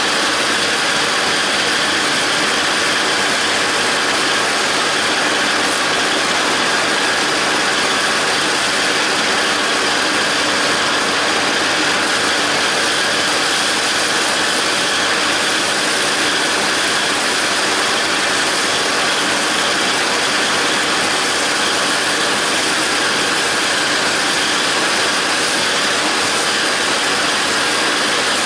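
A John Deere 5320 tractor's three-cylinder diesel engine and the PTO-driven John Deere 270 disc mower running steadily together while cutting grass hay.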